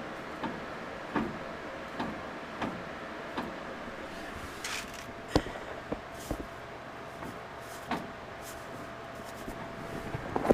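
Light clicks and knocks from a Ford Ranger's driveshaft being turned by hand, about one click every 0.7 seconds at first, then a few sharper knocks around the middle.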